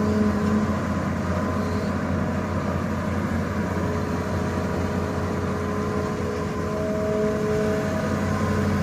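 Excavator's diesel engine running steadily, with a few steady whining tones that fade in and out over its low hum.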